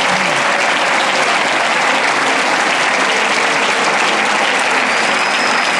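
Congregation clapping in steady, sustained applause.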